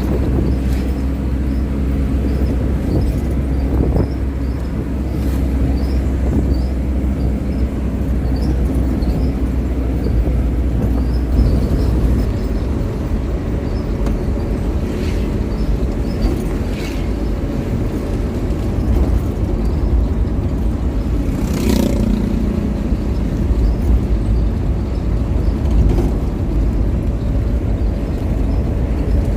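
Steady engine and road rumble of a moving vehicle, heard as a continuous low drone, with one brief louder sound about three quarters of the way through.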